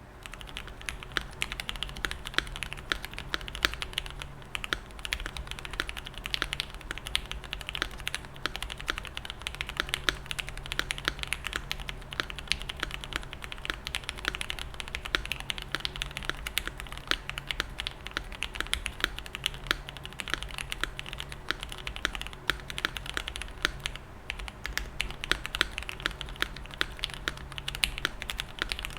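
Continuous fast typing on a custom mechanical keyboard with lubed linear Gateron Lion switches in an aluminium plate, foam-dampened case and screw-in stabilizers: a dense run of short, crisp keystroke clacks.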